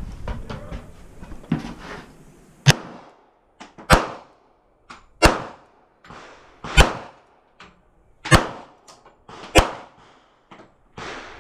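Pistol shots from a .45 ACP Sig Sauer 1911, about seven, evenly paced one every second and a half or so, each with a short echo off the surrounding structure.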